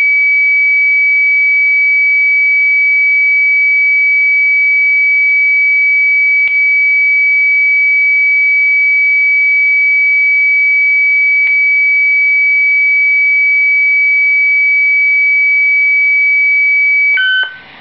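Signal of a 467.625 MHz radio beacon, received on a software-defined radio: a steady high-pitched tone over faint hiss, with two faint clicks along the way. Near the end it breaks into a quick run of short beeps at changing pitches.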